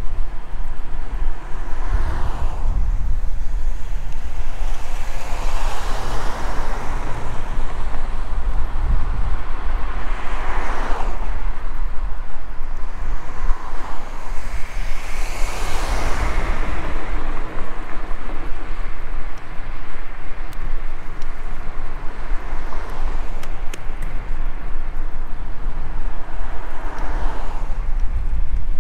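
Steady low wind rumble on the microphone of a moving bicycle, with traffic going by: about five vehicles pass, each swelling and fading away.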